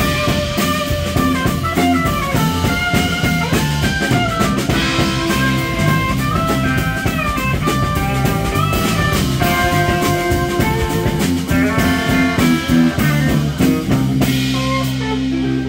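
Live rock band playing an instrumental passage: electric guitar and keyboard over bass guitar and drum kit. Near the end the drum hits thin out, leaving sustained chords.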